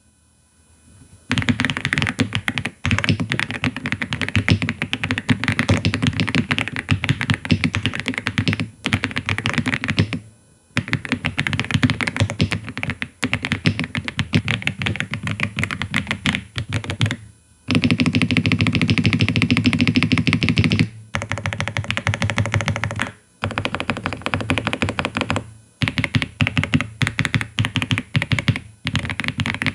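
Typing on an AULA F99 mechanical keyboard with LEOBOG Greywood V3 linear switches: rapid, dense keystrokes in runs of several seconds broken by brief pauses.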